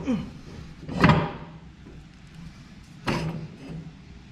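Two loud metallic knocks about two seconds apart, each ringing briefly: the steel arms of a vehicle lift being moved into place under a truck cab.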